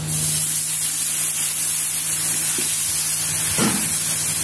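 Water poured into hot fried masala in a kadai, hitting the oil with a sudden, loud hiss and sizzle of steam that then carries on steadily.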